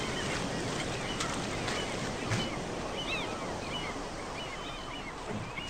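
Outdoor nature ambience: a steady noisy background with many short, high bird calls scattered through it.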